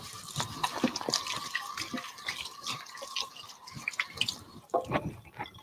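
Kitchen sink tap running with water splashing as hands are washed under it; the water stops about four and a half seconds in.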